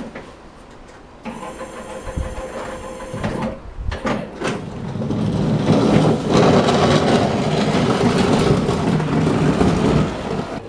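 Small home-built electric tractor running and ploughing snow: a noisy mechanical rattle that grows much louder about five seconds in.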